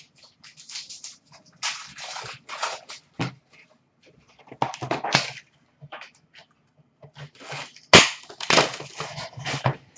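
Hockey card packaging handled and opened: bursts of crinkling foil wrappers and rustling cardboard box, with one sharp knock about eight seconds in.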